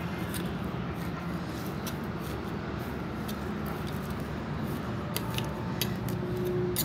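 Small metal hand trowel digging into potting soil in a terracotta pot, loosening the top layer to take it out, with scattered light clicks and scrapes. A steady low hum runs underneath.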